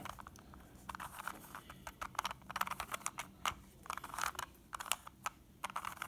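A plastic Rubik's cube being turned by hand: a run of irregular soft clicks and clacks as its layers are twisted.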